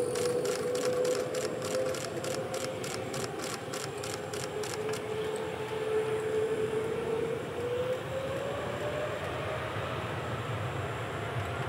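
Twin-engine airliner's jet engines running with a steady rumble and a strong whine that dips slightly in pitch and then rises near the end as the aircraft rolls away down the runway. A fast high ticking, about three to four a second, stops about five seconds in.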